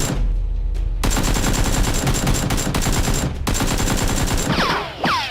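Rapid automatic gunfire in long bursts over a low rumble, ending in a few falling whistling tones.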